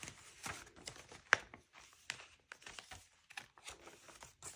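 Paper rustling and crinkling as junk journal pages and paper keepsakes are handled and turned, in a string of short, uneven rustles and clicks, with one sharp tap about a second in.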